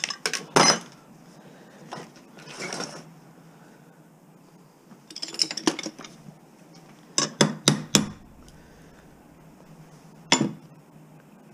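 Scrap metal parts clanking against a steel workbench top and against each other as they are handled and set down. The sharp clanks come in bunches, with a short rattle around three seconds in and again around five or six seconds, a group of hard clanks around seven to eight seconds, and one more near the end.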